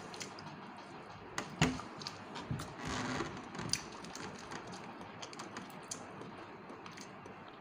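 Close-up eating sounds: chewing with small mouth clicks while fingers pick at grilled fish in a foil tray, a scatter of short sharp clicks and rustles, the loudest about one and a half seconds in.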